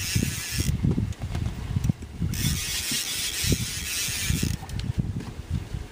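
Wind buffeting the microphone with a low, uneven rumble, and a fishing reel's drag hissing as a hooked fish pulls out line: once at the start and again for about two seconds midway.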